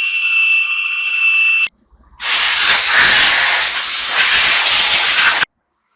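A power tool running with a steady high-pitched whine stops about a second and a half in. After a short pause comes about three seconds of loud compressed-air hiss, as from an air blow gun, which cuts off sharply.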